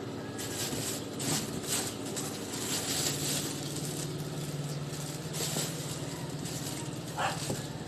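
Rustling and handling noises, several short rustles, over a steady low hum, with a brief higher-pitched squeak or chirp near the end.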